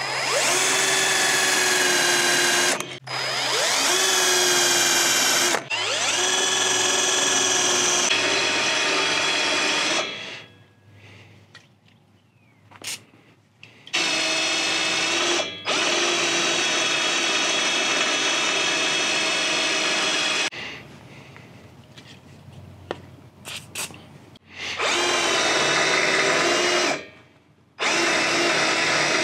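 Cordless drill with a twist bit boring holes through steel. It runs in several bursts of a few seconds each, its whine rising in pitch as it spins up at the start of each run, with longer pauses about ten and twenty-one seconds in.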